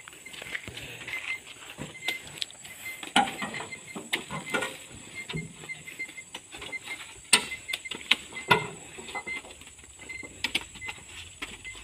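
Oil palm fruit bunches being pitched by hand and with a spiked pole up into a dump truck's loaded bed, giving irregular thuds and knocks as they are speared and land. Two sharper knocks, about halfway through, are the loudest.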